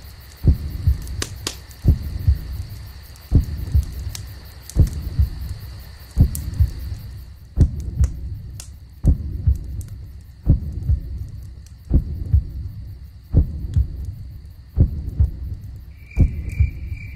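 A slow, very regular low double thump like a heartbeat, repeating about every one and a half seconds, over a thin steady high hum. A faint pulsing high tone comes in near the end.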